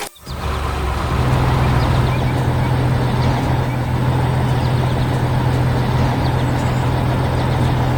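Heavy truck engine running steadily, building up over the first second and then holding an even low drone.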